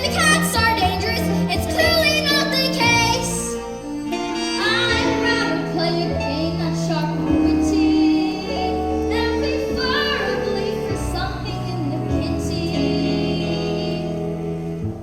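Musical-theatre accompaniment playing for a stage song, with a sung melody over it.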